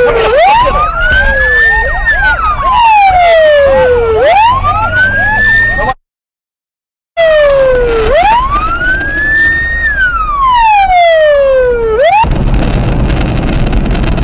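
Police car siren wailing, its pitch sweeping slowly up and then down about every four seconds, with fainter overlapping sweeps. The audio drops out for about a second midway, and near the end the siren stops, leaving engine and road noise inside the car at speed.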